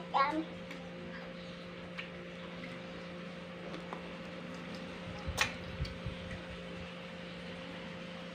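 Steady low electrical hum in a small room, with a few faint taps and clicks from handling at the table. The sharpest click comes about five and a half seconds in.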